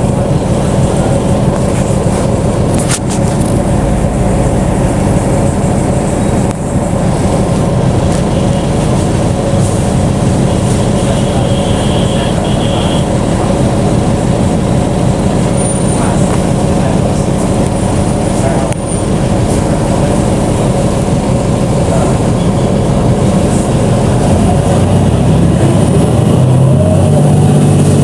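BonLuck DD6181S32 articulated bus running, with a steady engine and drivetrain hum; the engine note rises and gets a little louder near the end as the bus picks up speed.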